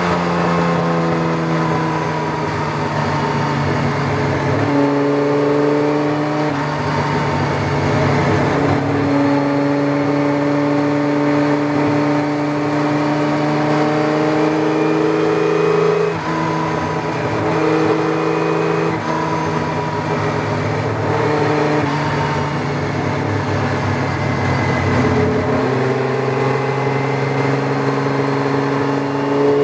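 Tojeiro Jaguar sports-racing car's Jaguar straight-six engine running hard on track, heard from the open cockpit. Its pitch steps up and down several times as the car goes through the gears.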